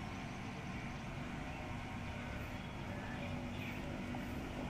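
A steady low hum of a distant engine.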